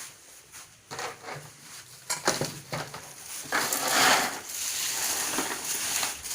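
Dry, brittle raw krupuk crackers clattering and rattling as they are handled, with scattered clicks at first. About three and a half seconds in comes a louder rush as a batch of them is tipped, followed by a steadier rustling clatter.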